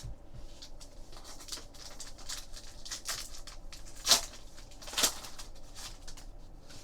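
Trading-card packs and cards being handled: soft rustling and crinkling of the foil pack wrapper and cards, with two louder sharp rips or crinkles about four and five seconds in.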